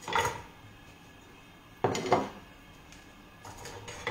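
Kitchen utensils clattering against dishes and a wooden cutting board. There are two sharp, ringing knocks about two seconds apart, with faint handling noise near the end.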